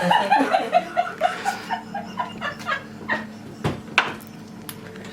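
A person laughing in a quick run of short, evenly spaced ha's that slowly fall in pitch, followed by two sharp knocks near the end.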